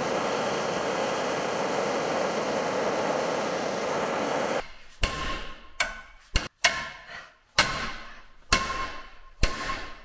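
Handheld gas torch flame hissing steadily as it heats a steel part clamped in a bench vise, cutting off suddenly about four and a half seconds in. Then about six sharp hammer blows on metal, roughly one a second, each ringing briefly.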